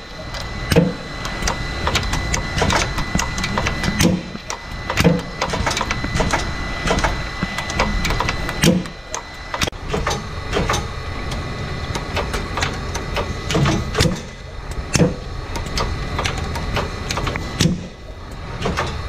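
Automated packaging machine running: a steady mechanical hum with frequent sharp clicks and knocks from its moving parts, and a faint steady high whine.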